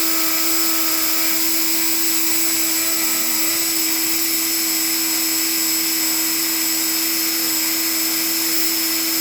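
Dremel rotary tool spinning at about 20,000 RPM as the spindle of a homemade CNC mini mill, a steady high-pitched whine that holds an even pitch and level throughout.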